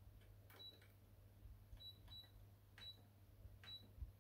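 Near silence, with faint short clicks about once a second, each carrying a brief high tone, over a low steady hum.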